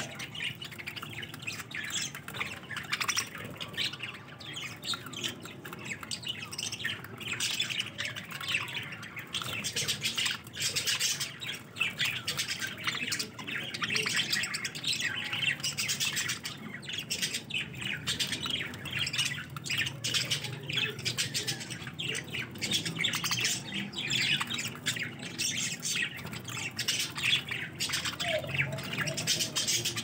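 A flock of budgerigars chattering, with a dense, unbroken stream of short chirps and squawks.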